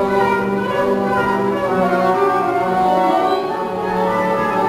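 Orchestral classical music for a ballet solo, strings holding sustained notes at a steady loudness.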